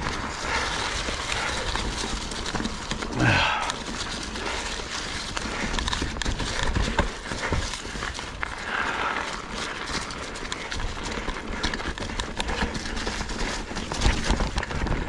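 Ibis Ripmo V2 mountain bike riding over a rocky, leaf-strewn trail: a dense, continuous clatter of tyres and bike knocking over rocks and through leaves.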